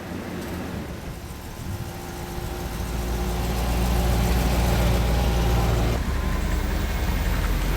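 Mercedes convertible's engine running, growing louder over the first few seconds and then holding steady, with a faint steady whine that stops near the end.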